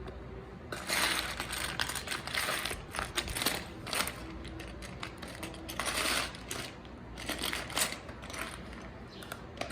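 Small plastic toy pieces clicking and clattering as they are handled and sorted, in irregular bursts of rustling and clicks.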